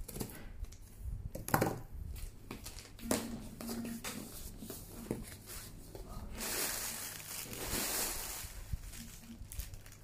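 Plastic packaging crinkling and rustling as a parcel is unpacked by hand, with a few knocks and taps. The crinkling is loudest and most continuous from about six to eight and a half seconds in.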